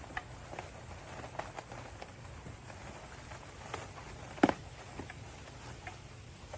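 Scattered light taps and clicks of hands handling the parts of a car headlight, with one sharp, louder click about four and a half seconds in.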